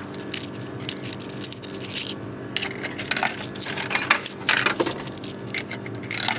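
Small coins clinking together in a hand and being fed one by one into a drink vending machine's coin slot, each dropping into the machine with a clink. A steady low hum runs underneath.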